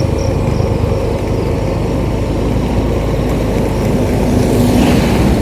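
Motorcycle running steadily along the road, engine and road noise heard from the rider's position.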